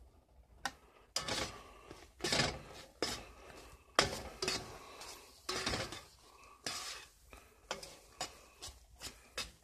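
A spatula scraping and stirring wet scrambled powdered eggs around a skillet. It makes a string of irregular scrapes, about one or two a second, starting about a second in.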